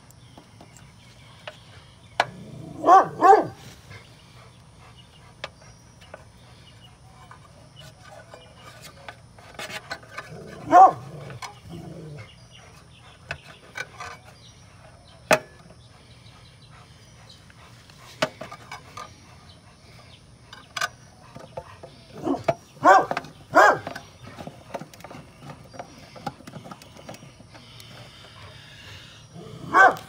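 A dog barking in short bursts: two barks about three seconds in, one around eleven seconds, a quick run of three or four a little after twenty seconds, and another near the end. Sharp little clicks come between the barks as wires are worked onto a condenser's run capacitor.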